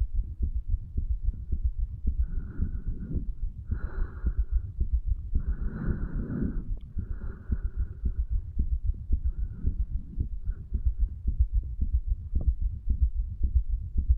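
A 35-year-old man's heartbeat picked up against the chest over the tricuspid valve area: steady, regular low thumping of the heart beating and pumping.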